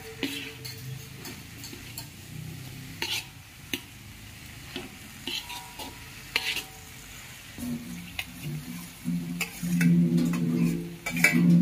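A metal spatula scrapes and taps against a wok as vegetables are stir-fried, with a light sizzle underneath. The scraping gets louder and rings more in the last few seconds.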